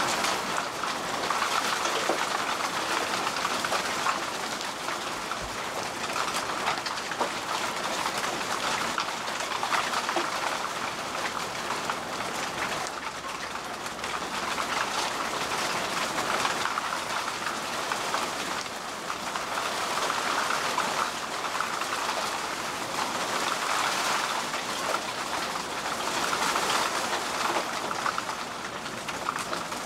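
Heavy rain pouring down onto flooded ground and standing water, a dense hiss of drops that swells and eases every few seconds, mixed with the rush of muddy floodwater.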